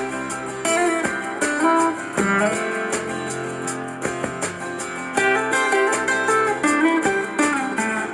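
Guitar music, a run of plucked and strummed notes, played back through a Fiero Squad P160 portable speaker.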